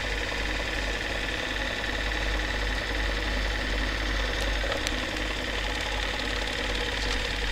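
Narrow-gauge home-movie film projector running: a steady mechanical whirr over a constant low hum.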